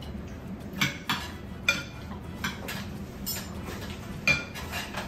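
Metal cutlery clinking against a dish while eating, about eight sharp, irregular clinks.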